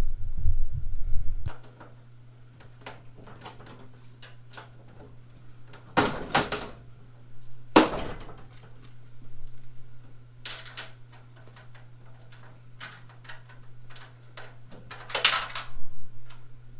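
Scattered metal knocks, clanks and rattles of parts being handled on a steel tool cart while its handle is bolted on. There is a low rumble of bumping in the first second or so, the loudest knocks come about six and eight seconds in, and a cluster of rattles near the end, over a faint steady low hum.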